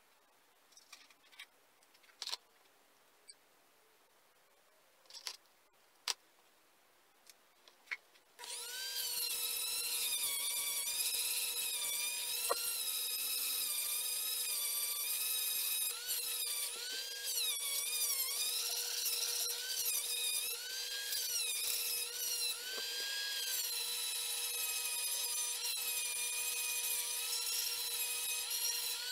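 A few small clicks and taps of metal parts being handled, then about eight seconds in a high-speed rotary tool starts up, its whine wavering up and down as it grinds on the motorcycle engine's cylinder.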